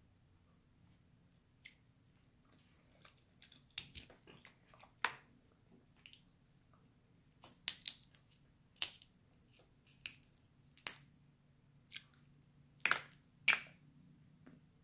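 Crab leg shells cracked and snapped apart by hand: an uneven series of sharp cracks and clicks, the loudest about five seconds in and two close together near the end.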